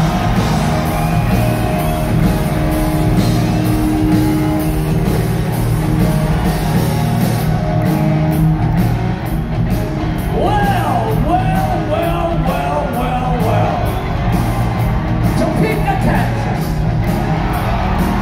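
Loud live rock band playing in an arena: full band with drums and guitars, and the lead vocalist's singing coming in about ten seconds in.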